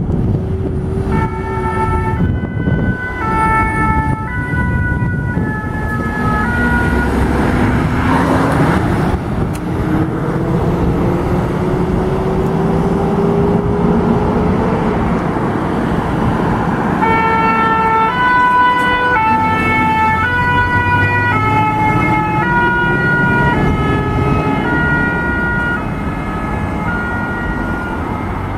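French fire engines' two-tone sirens sounding, alternating a high and a low note about every three-quarters of a second, in two spells with a break in the middle. Under them the vehicles' engines run, with a slowly rising engine note as they accelerate away.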